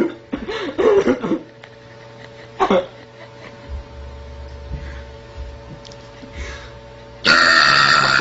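A girl belching several times in short bursts, then a longer, louder one about seven seconds in.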